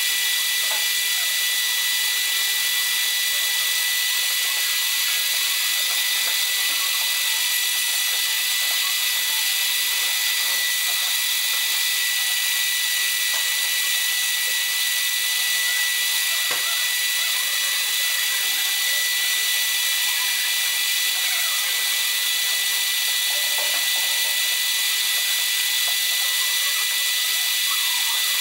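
Warco Super Mini Lathe running steadily with a high whine, its turning tool cutting a spinning brass bar.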